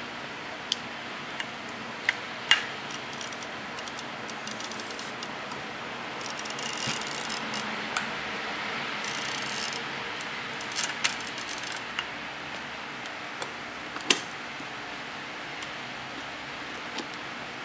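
Hands handling a Mamiya C330F medium-format camera's metal body and film back: scattered small clicks and rubbing, with a stretch of rustling in the middle and a few louder clicks, the sharpest near the end.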